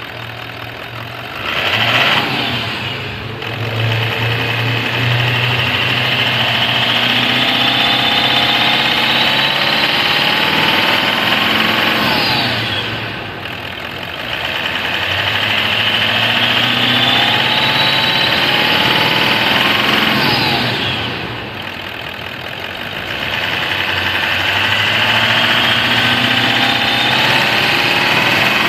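Toyota Land Cruiser 200's twin-turbo V8 diesel engine revved three times and held at raised revs for several seconds each time, easing back toward idle in between. The engine now runs without the knock, which the mechanic says is gone after the repair.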